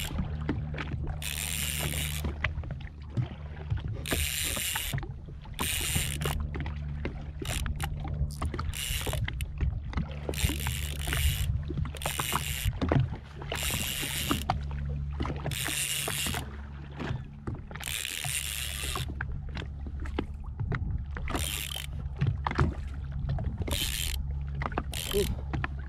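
Jet ski engine idling with a steady low hum, under repeated short hissing bursts of water splashing against the hull.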